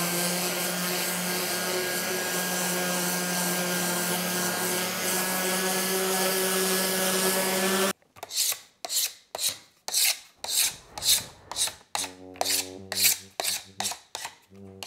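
Electric palm sander running steadily with 60-grit paper on a sheet of Formica ColorCore laminate, scuffing its shiny face so wood glue will hold. The sander cuts off suddenly about eight seconds in. A knife is then scraped across the laminate in quick repeated strokes, about three a second, scoring the surface.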